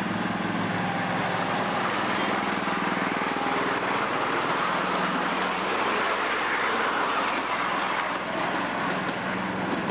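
Ride-on miniature train running along its track: the locomotive's engine drones at one steady pitch under an even rushing noise from the moving train.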